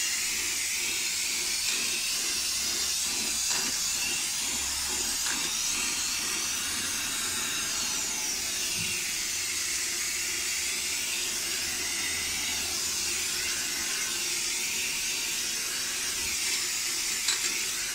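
Aerosol spray-paint can spraying onto a wall in one long continuous hiss that cuts off abruptly at the end.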